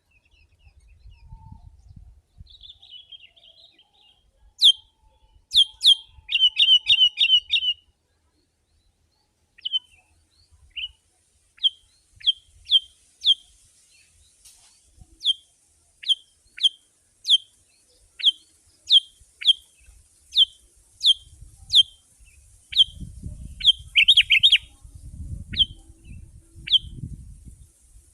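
Sooty-headed bulbul (kutilang) calling in a long series of short, sharp, falling chip notes, a bit more than one a second, with a quick rattling run of notes a few seconds in. A low rumbling noise sits under the calls near the end.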